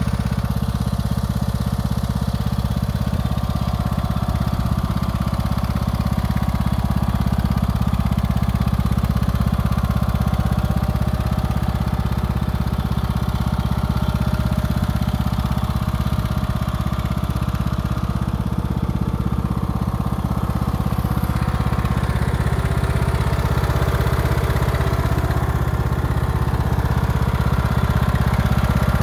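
Troy-Bilt riding lawn mower's Kohler engine running steadily.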